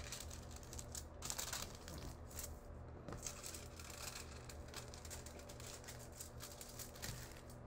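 Sheet of aluminium foil crinkling faintly as it is folded and creased by hand, in irregular small rustles.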